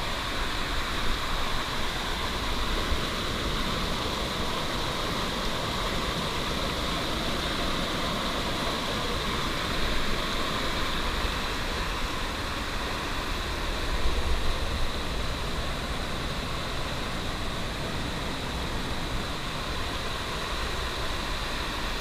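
Steady rush of whitewater tumbling down the rocky cascades of a forest stream and waterfall.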